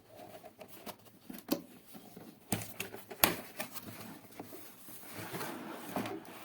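Cardboard keyboard box being opened and handled: scattered taps and clicks, the sharpest a little after three seconds in, with a stretch of rustling and sliding packaging about five seconds in.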